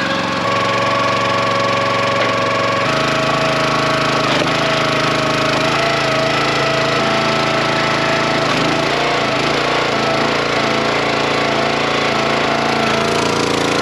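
Small gas engine of a 25-ton Dirty Hand Tools log splitter running steadily. Its tone changes about three seconds in and wavers a little later on.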